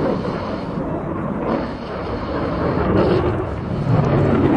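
Jet noise from an F-22 Raptor's twin Pratt & Whitney F119 turbofan engines as it flies past, a loud rumble that grows louder in the last second.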